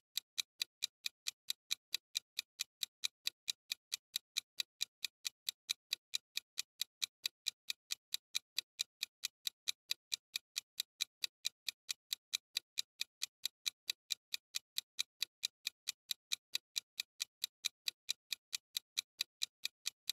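Clock-ticking sound effect marking a countdown timer: fast, even ticks at about four a second.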